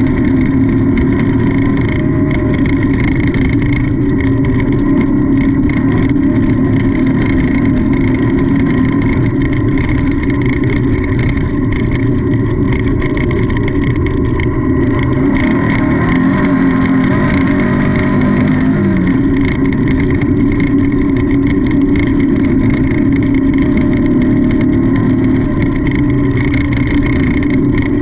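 Off-road race car's engine running hard at steady high revs, heard from on board, with the rumble and rattle of the car over rough ground. About two-thirds through, the engine note dips and climbs again for a few seconds.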